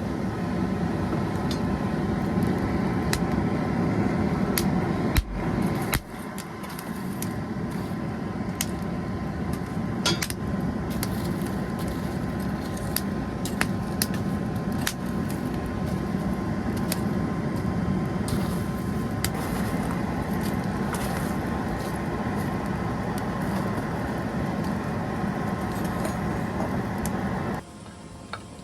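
A steady mechanical roar with a faint hum, starting abruptly at the beginning and cutting off about a second before the end, with a few scattered light metallic clicks.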